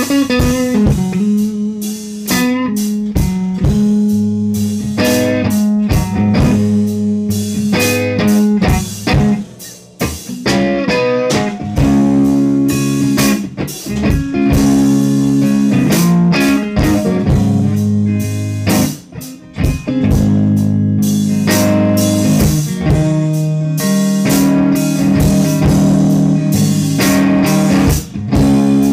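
Blues backing track in A-flat played by electric guitar, bass guitar and drum kit, with a steady groove that drops out briefly twice.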